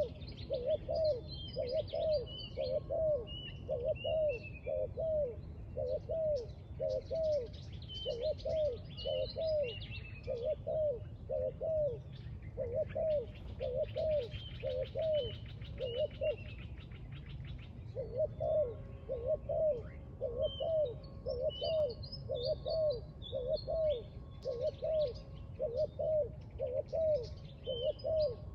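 Spotted doves cooing over and over in a steady rhythm, pausing briefly about two-thirds of the way through. Other small birds chirp high above them, with a fast ticking trill in the middle.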